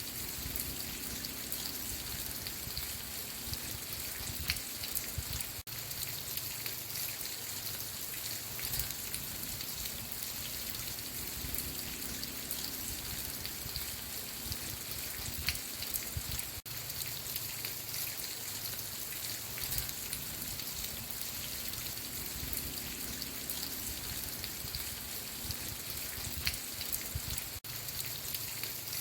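Steady rain falling, with close individual drops striking a surface. The level dips briefly about every eleven seconds, where a looped rain recording restarts.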